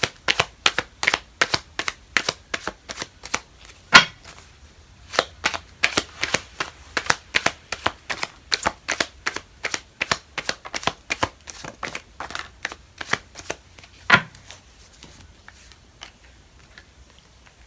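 Deck of tarot/Lenormand cards being shuffled by hand: a steady run of small card slaps, about three a second, with two louder knocks about four and fourteen seconds in. The shuffling stops near the end.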